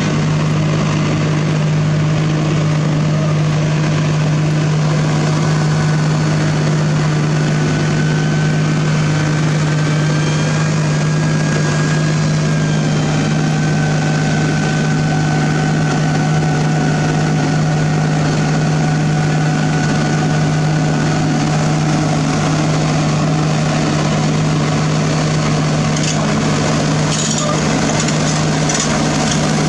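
Heavy diesel engine running at a steady speed, a constant low drone with a faint whine above it.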